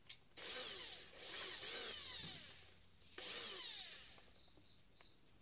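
Three rasping strokes of a hand tool worked against a pipe fitting, each lasting under a second. There is a pause of about a second before the last stroke.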